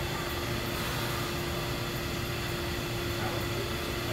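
R179 subway train standing at the platform, its air-conditioning and onboard equipment humming steadily with one constant mid-pitched tone.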